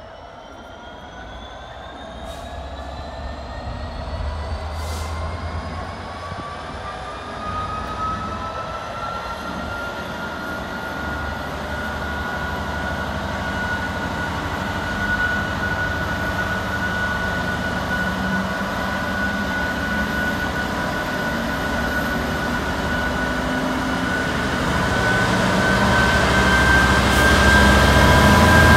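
GB Railfreight Class 66 diesel locomotive hauling a container train, its EMD two-stroke V12 engine growing steadily louder as it approaches. A high whine climbs in pitch over the first several seconds, holds steady, then rises again near the end as the locomotive draws close.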